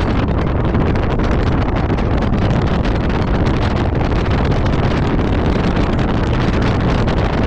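A vehicle driving over a rough gravel off-road track: steady engine and tyre noise, with wind buffeting the microphone.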